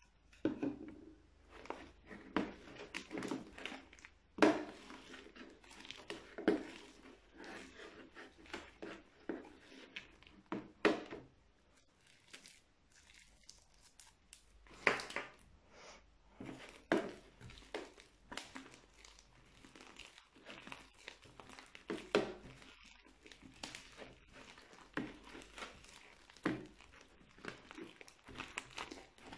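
Crunchy foam-bead slime being kneaded and squeezed by hand: irregular crackling and crinkling as the beads are crushed and the slime stretches, with a short lull about halfway through.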